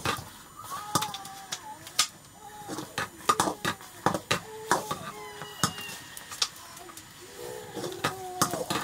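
Wooden stirring stick knocking and scraping against the sides of a blackened metal pot as rice is stirred, in irregular sharp clicks. Short pitched calls sound now and then in the background.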